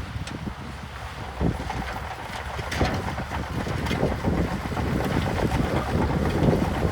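Heavy earthmoving machinery running, a low diesel rumble with several sharp clanks of rock or steel, and wind buffeting the microphone.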